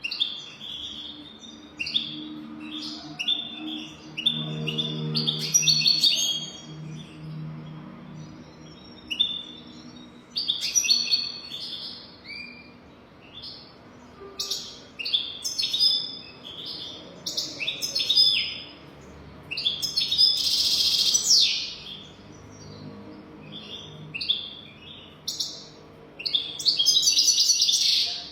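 European goldfinch singing: phrase after phrase of rapid, high twittering notes mixed with harsher buzzy ones. The longest and loudest phrases come about two-thirds of the way in and again near the end.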